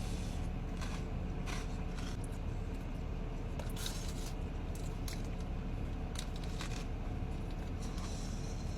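A person eating a chicken Caesar wrap: short bursts of chewing and wrapper rustle, about six in all, over a steady low hum.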